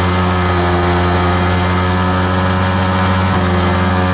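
Yamaha R15M's 155 cc single-cylinder engine held at full throttle at steady revs during a burnout, the rear tyre spinning in place against the road.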